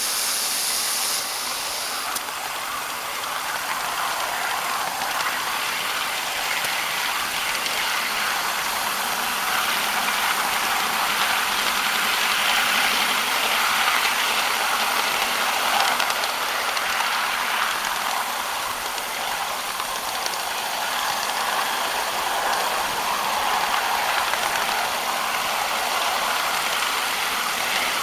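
Ridable live-steam miniature locomotive running down the track: a steady rattling clatter of its wheels and running gear on the rails. A high hiss cuts off about a second in.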